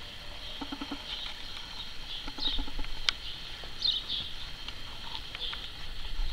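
Birds calling: short high chirps recur every second or so over a steady high hiss, and a short low pulsing call comes twice, about half a second in and again at two and a half seconds. A single sharp click a little after three seconds.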